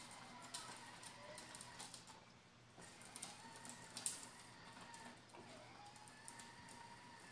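Faint whine of a child's battery-powered ride-on toy fire truck's electric motor as it drives, dipping in pitch briefly about five seconds in, with scattered light clicks.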